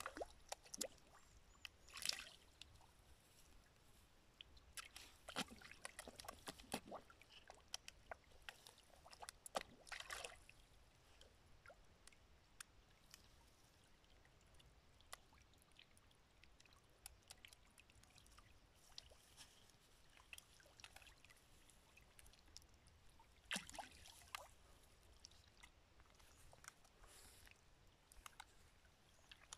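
Fish feeding at a pond's surface: a few faint, short splashes as they rise to take floating bread, several in the first ten seconds and another at about twenty-four seconds, with near quiet between.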